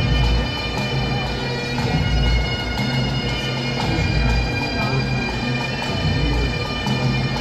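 Bagpipes playing a tune over their steady drones, with a low beat about every two seconds.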